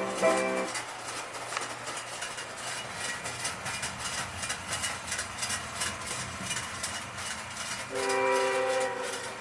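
Tinplate toy train running on its track with a rapid, steady clicking of wheels over the rails. A brief steady whistle-like tone sounds about eight seconds in.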